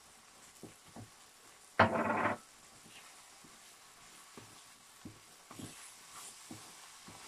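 Wooden spatula stirring chicken keema and tinda pulp in a steel wok over a faint sizzle, with soft knocks of the spatula against the pan. One louder half-second noise about two seconds in.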